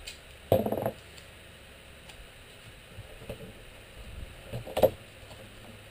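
Painter's tape pulled off the roll in a short crackly rip about half a second in, then hands handling and pressing the tape onto a wooden panel, with a few light knocks and a second sharp rip-like noise just before the end.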